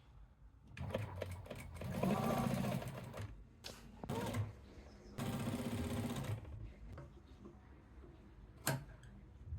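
Sewing machine stitching in several short runs of about a second each, with a sharp click near the end.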